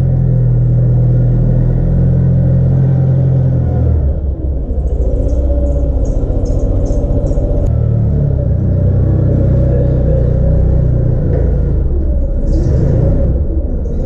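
Clark propane forklift's engine running as it drives and carries a potato bin. The engine note shifts about four seconds in, with a short run of light ticking soon after and a brief hiss near the end.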